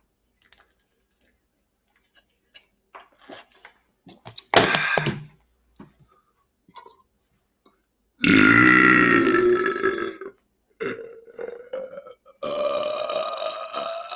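A person belching loudly and deliberately several times: a short belch about four and a half seconds in, a long drawn-out belch of about two seconds near the eight-second mark, a brief one just after, and another long belch starting near the end that carries on.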